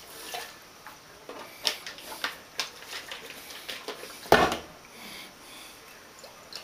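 Glass liquor bottles handled and set down on a stone countertop: scattered light clinks, and one loud knock a little past four seconds in as a bottle is put down.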